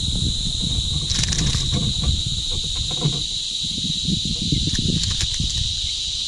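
Steady, shrill insect chorus droning without a break, with a low rumble underneath and a few short clicks scattered through.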